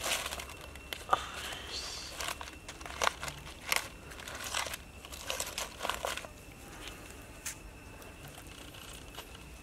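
Green palm-leaf strips crinkling and crackling as a king crab is set down on them and its legs are moved into place by hand. A string of short crackles and clicks runs for about six seconds, then it goes quieter apart from one more click.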